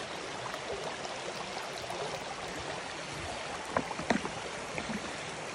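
Creek water running steadily over rocks, with a couple of short sharp knocks about four seconds in.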